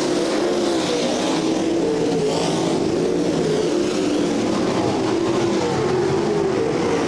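A pack of winged sprint cars racing, their V8 engines running together under green: several overlapping engine notes that waver up and down at a steady loudness.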